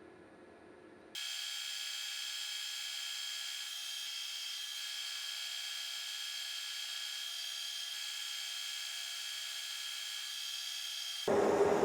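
A machine tool cutting steel: a steady hiss with high-pitched whining tones that starts suddenly about a second in and stops suddenly near the end.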